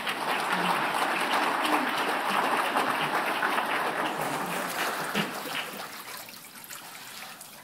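Congregation applauding, a dense patter of many hands that fades away over the last couple of seconds, with water sloshing in the baptistry as the newly baptized woman wades out.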